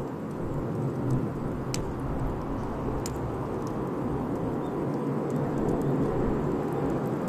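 Wood fire burning: a steady low rush with scattered sharp crackles and pops from the burning wood, two of them louder in the first few seconds.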